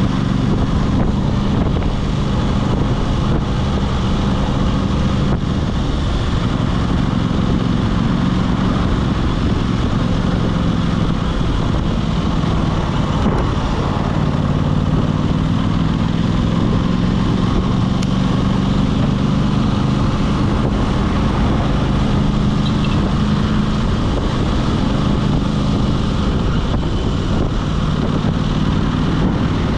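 Aprilia RS 660's parallel-twin engine running as the bike rides along at moderate revs, its pitch rising slowly through the second half, with wind noise on the microphone.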